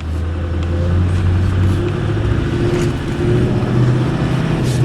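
Ford F-450 truck engine running, heard from inside the cab, its pitch stepping up about three and a half seconds in as the revs rise.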